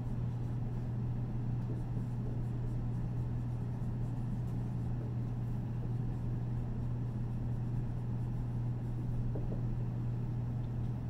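Steady low room hum, with faint strokes of a marker on a whiteboard.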